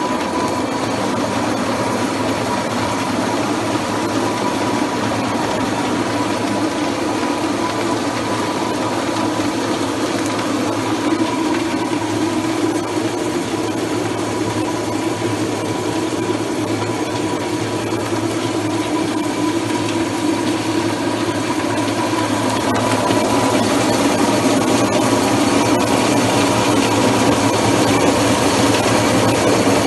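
Electric grape destemmer-crusher running steadily as grapes are tipped in, a constant motor hum with a steady whine over it, getting a little louder about two-thirds of the way through.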